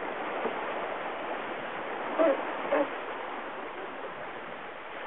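Steady rush of water and wind around a sailing yacht under way, with two short calls a little over two seconds in.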